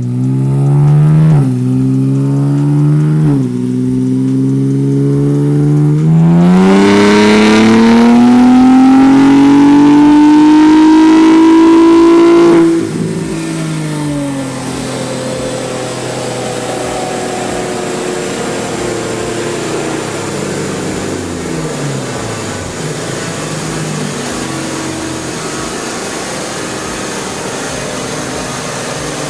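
Nissan Z's VR30 twin-turbo V6 going up through a few gears, then making a full-throttle pull that rises steadily in pitch for about six seconds, typical of a dyno run. The throttle then closes abruptly, and the engine winds down in pitch for several seconds before settling to a steady lower note.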